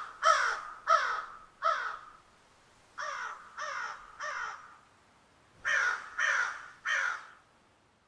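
Crow cawing in three runs of three or four caws, each caw falling in pitch, the middle run fainter.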